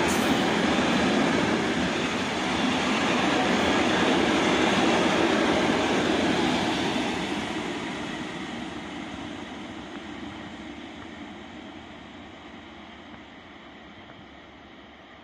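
Intermodal freight train's container wagons running past on the track with a dense wheel-and-rail noise, which fades steadily from about halfway through as the last wagon draws away.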